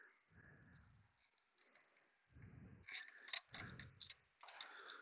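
Faint light metallic clicks and taps of a hand tool against the dual-clutch assembly, mostly in a cluster from about two and a half to four seconds in, with soft handling rustle between.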